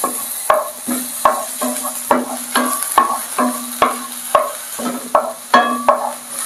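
Wooden spatula stirring chopped onion, garlic and chili in a ceramic-coated frying pan, knocking and scraping the pan about two to three times a second, over the steady sizzle of the vegetables sautéing in hot oil.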